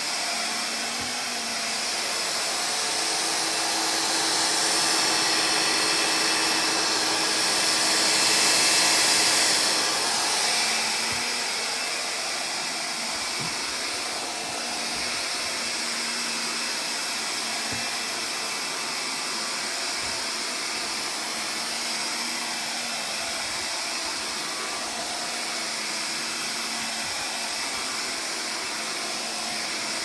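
Stick vacuum running on carpet: a steady motor whine and rush of air that swells for several seconds about a third of the way in, then settles back to an even level.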